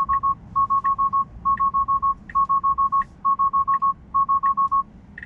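Tesla Model 3's take-over-immediately alarm: rapid groups of five short beeps at one pitch, a group about every second, stopping a little before five seconds in. It sounds because Full Self-Driving is disengaging with its front camera blinded by direct sunlight.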